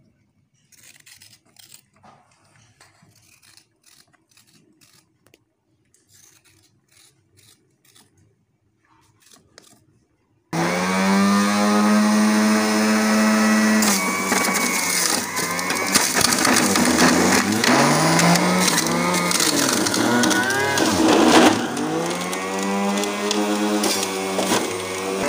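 Faint scraping of a vegetable peeler on carrots. About ten seconds in, an electric centrifugal juicer starts abruptly and runs loudly. Its motor pitch dips and recovers several times as carrots are pushed down the feed chute and load the motor.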